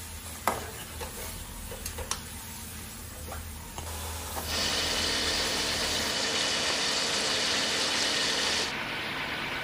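A few light clicks and knocks of kitchen utensils, then about halfway in a loud, steady watery hiss starts and eases slightly near the end.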